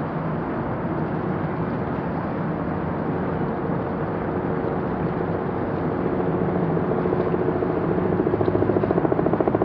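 An engine running steadily under a noisy rush. It becomes a fast, even pulsing thrum that grows louder near the end.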